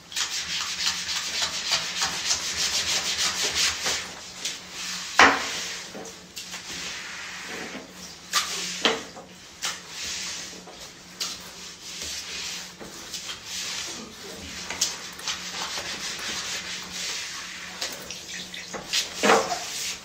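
Push broom with a wooden handle sweeping grit across a tiled floor: repeated scratchy bristle strokes, busiest in the first few seconds. A few sharp knocks stand out along the way.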